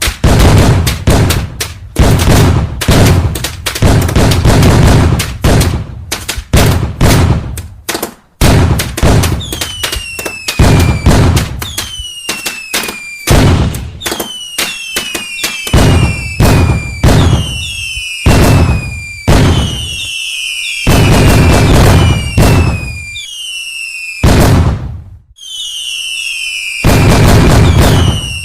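Fireworks going off in quick succession: loud, dense bangs and crackle, and from about a third of the way in, many short whistles that fall in pitch among the bangs.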